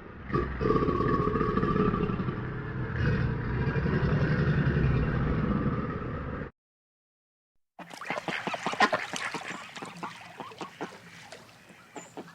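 A dense, steady low sound, cut off abruptly by a second of silence, then ducks quacking in a rapid, irregular string of short, harsh calls.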